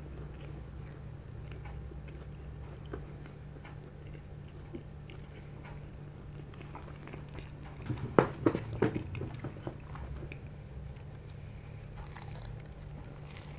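Close-miked chewing of a mouthful of cheese-burst-crust pizza: soft wet mouth sounds with small clicks, and a louder run of crunchy bites about eight seconds in. A steady low hum runs underneath.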